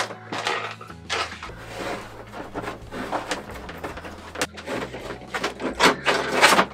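Fish tape being worked through the overhead cabin headliner: an irregular run of scrapes, rattles and clicks.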